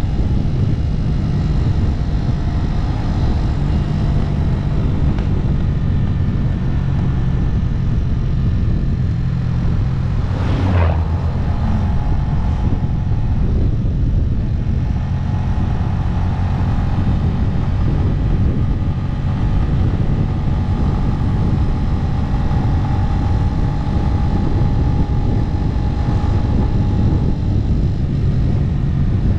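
Motorcycle riding along at a steady speed: the engine runs evenly under a dense rush of noise. A brief sharper sound cuts through about ten seconds in.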